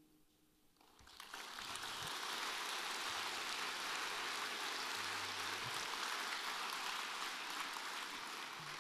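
Audience applauding at the end of a song, starting about a second in and dying away near the end.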